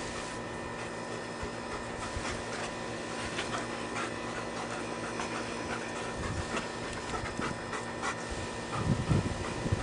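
Large shepherd dog panting close to the microphone over a steady hiss, with a few louder low thumps near the end.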